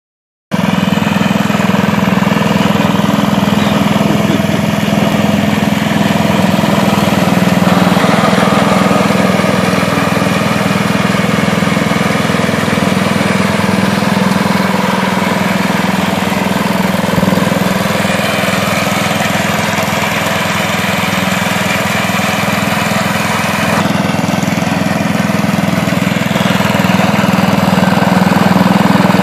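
Husqvarna riding lawn mower's engine running steadily while the mower is driven across the grass, its note shifting slightly now and then.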